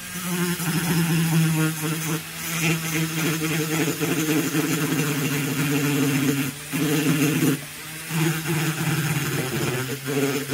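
Rotary tool with a coarse-grit sanding drum running at low speed, grinding and smoothing the transfer ports of an Echo CS-670 chainsaw cylinder. Steady motor whine that dips briefly a few times as the drum works against the port walls.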